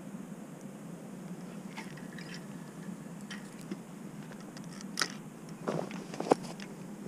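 Scattered clicks and knocks from a feeder rod and spinning reel being handled, the loudest about five seconds in and a sharp knock just after six, over a steady low hum.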